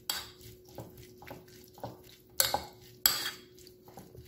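Metal spoon stirring wet diced tomatoes and onion in a bowl, scraping and clinking against the bowl's side in short strokes, with the loudest scrapes just after the start and about two and a half and three seconds in.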